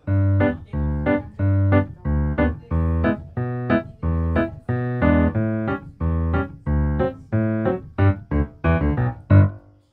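Background music with a keyboard playing short, evenly spaced chords, about two a second, starting suddenly.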